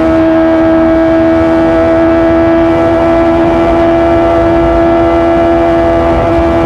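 Kawasaki ZX-25R's 250 cc inline-four engine running through an Arrow Works titanium full-system exhaust, held at steady high revs. It gives a constant high engine note with a brief small wobble in pitch near the end.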